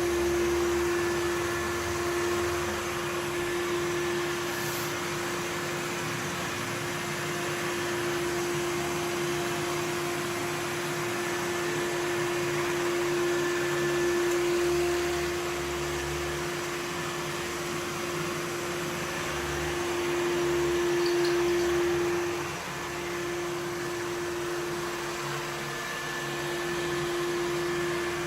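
Samsung VR20M7070WD robot vacuum running: a steady hum and suction noise with a constant mid-pitched whine, briefly dropping in level about three-quarters of the way through.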